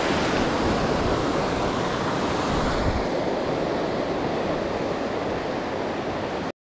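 Ocean waves breaking and surf washing over the shallows, a steady rush; it cuts off suddenly near the end.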